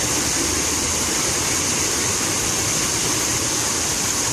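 Fountain water falling and splashing in a steady, even rush.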